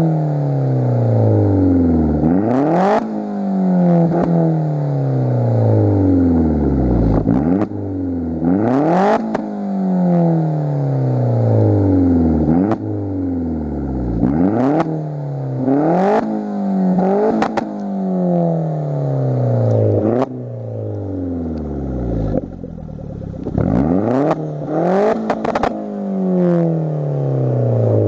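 Vauxhall Astra VXR's turbocharged 2.0-litre four-cylinder engine revved over and over through a Piper aftermarket exhaust, heard right at the tailpipe. Each rev climbs quickly and falls back in a long drawn-out descent, about a dozen times, with a short sharp burst of noise at the top of several revs.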